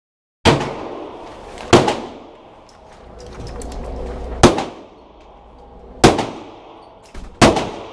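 Five .45-calibre pistol shots at irregular intervals, each followed by the echo of an indoor shooting range, with a fainter shot just before the last.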